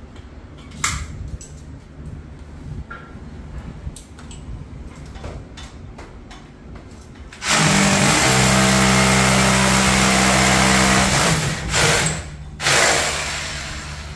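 Light clicks and handling knocks, then a power drill runs hard for about four seconds, stops, and gives two short bursts.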